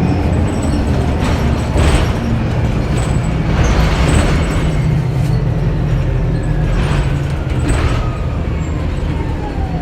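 2009 Orion VII Next Generation hybrid bus (Cummins ISB engine with BAE Systems HybriDrive) running, heard from inside the bus: a steady low drone with a few brief louder rushes of noise and a faint falling whine near the end.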